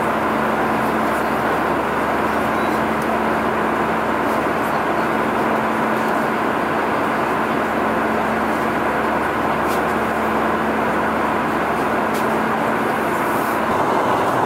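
Steady cabin roar of an Airbus A320 in flight, engine and airflow noise heard from a window seat beside the engine, with a steady hum underneath. Near the end the hum drops out and the noise turns slightly louder.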